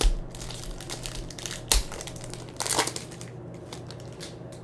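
Foil wrapper of a Panini Prizm basketball card pack crinkling and crackling in a few short bursts as it is handled and the cards are pulled out. The loudest crackle comes a little before three seconds in, and then it dies down.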